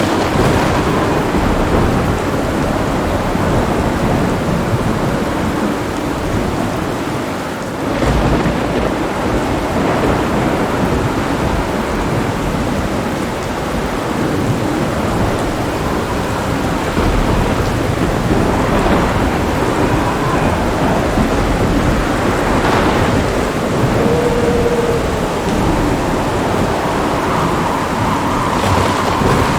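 A thunderstorm: heavy rain falling steadily under rolling thunder. A fresh crack of thunder breaks in about eight seconds in and rumbles on, with further swells of thunder later.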